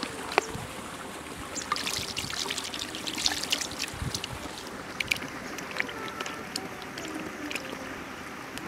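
Raw chicken pieces being washed and rubbed by hand on a plastic plate: wet trickling with scattered small clicks, which cluster a couple of seconds in and again around five seconds.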